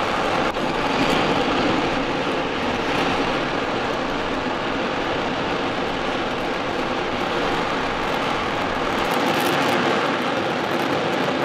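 RS-25 liquid-hydrogen/liquid-oxygen rocket engine firing on a test stand: a loud, steady rushing roar.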